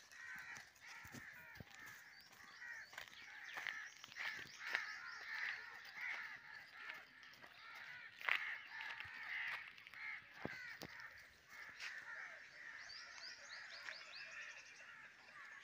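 Birds calling in a faint, steady chorus of short chirps and caws, with higher chirps near the end. A few light clicks, the sharpest about eight seconds in.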